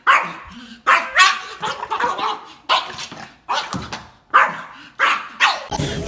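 A dog barking, a string of about eight short barks at uneven intervals.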